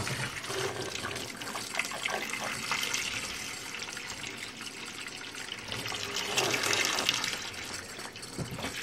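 Kitchen sink tap running, a steady rush of water splashing down.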